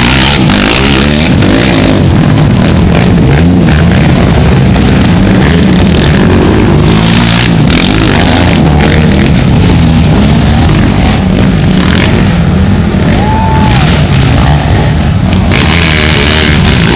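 Racing ATV engines revving hard, the pitch climbing and dropping again and again with throttle and gear changes.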